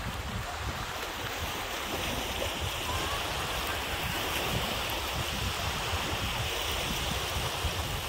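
Wind buffeting the microphone in irregular low gusts over a steady wash of lake waves breaking on a sandy shore.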